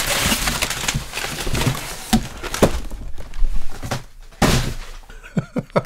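Packing paper rustling as items are taken out of a box, with a few dull thunks as things are handled and set down.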